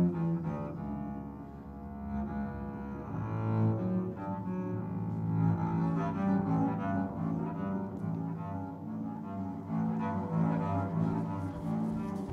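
Double bass played with a bow: a line of long, low notes that change pitch every second or so.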